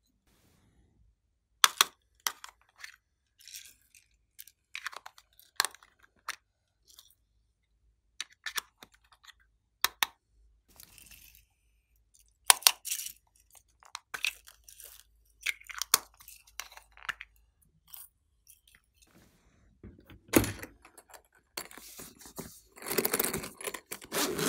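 Scattered sharp clicks and taps of small plastic containers being handled and set down, then a longer rasping noise near the end as a zippered pencil case is opened.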